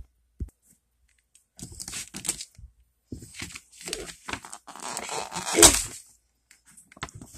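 A sharp click, then bursts of rustling and crinkling as a hand handles plush toys and bedding close to a phone microphone, loudest about two-thirds of the way through.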